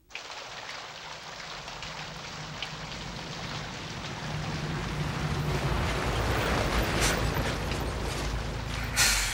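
Heavy rain pouring onto pavement as a steady hiss, with the low rumble of a bus growing louder as it pulls in. A short, loud hiss comes near the end.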